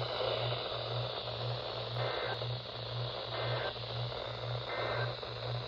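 Radio receiver hiss and static from a weak signal, with a low hum that pulses about twice a second.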